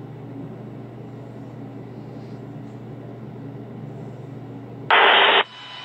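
A steady low hum, then near the end a loud half-second burst of radio static like a transmission opening.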